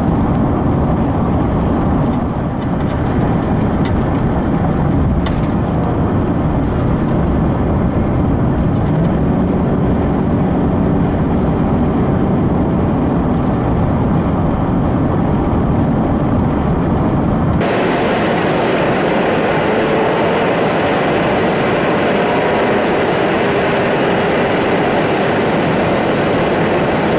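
Steady road noise inside a moving car: engine and tyre rumble. About two-thirds of the way in it changes abruptly to a brighter, hissier rush with much less bass.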